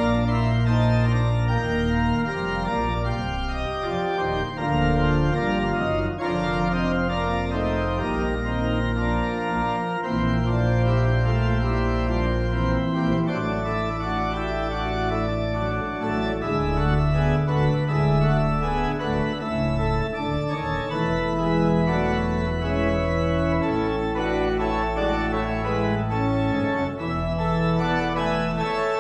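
Church organ played solo: held chords over deep pedal bass notes, changing every second or two.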